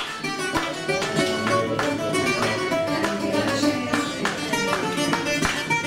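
Bouzouki playing an instrumental passage of quick plucked notes.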